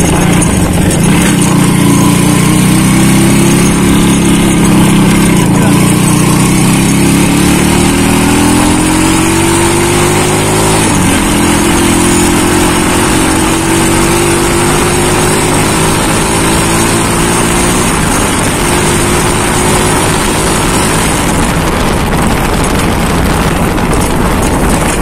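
Small motorcycle engine pulling under way: its pitch climbs for about ten seconds, drops sharply at a gear change about eleven seconds in, then climbs gently again and levels off. Wind and road rush sit under it.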